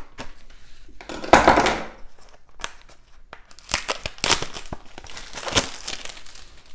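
A small cardboard card-game box being cut open with scissors and its wrapper torn off, with a loud tearing rush about a second in. Crinkling and sharp little clicks follow as the wrapper comes away and the box is opened.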